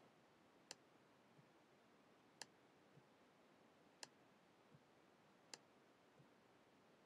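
Faint clicks of a laptop trackpad: four sharp presses about a second and a half apart, each followed by a softer release click, as slider after slider is dragged down.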